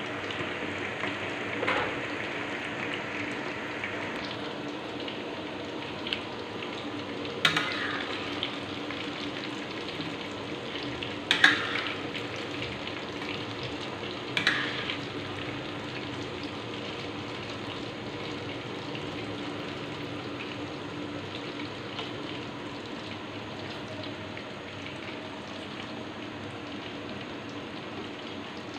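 Ketupat palas parcels frying in oil in a steel wok, with a steady sizzle throughout. Three short, louder clatters come partway through.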